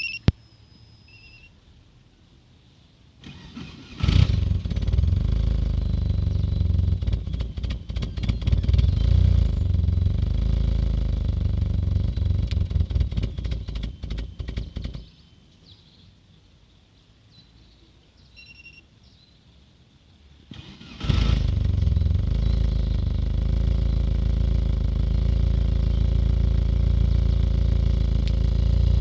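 Car engine cranked and started about 4 seconds in, running with an uneven, wavering beat, then shut off about 15 seconds in. It is cranked and started again about 21 seconds in and runs on. The engine is misfiring because one fuel injector has stopped spraying properly and delivers about 20% less fuel than the others.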